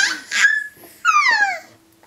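Baby's high-pitched squeals in a fit of laughter, ending in one long squeal that falls in pitch about a second in.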